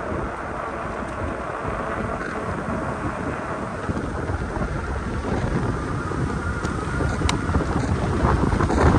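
Wind buffeting the microphone of an e-bike in motion, a steady noisy rumble strongest in the low end, with a few sharp clicks near the end.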